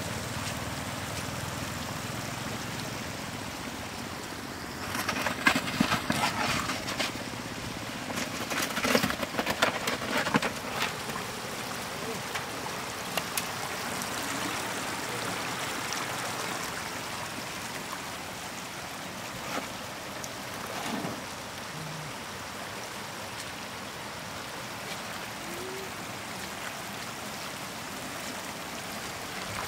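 Shallow floodwater running steadily, broken by two spells of loud splashing about five seconds in and again around nine to eleven seconds, as a wicker basket is scooped and worked through the water to catch catfish.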